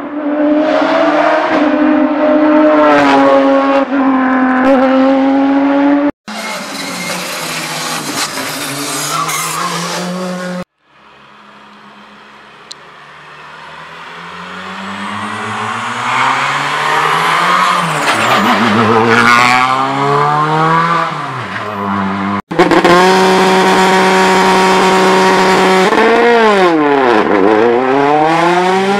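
Rally car engines at high revs on a tarmac stage, in several short passes cut together, the revs climbing and dropping through gear changes. One car is heard faintly at first, grows louder and passes about two-thirds of the way through. Near the end a Peugeot 208 rally car at the start line holds its revs steady, then they dip sharply and climb again.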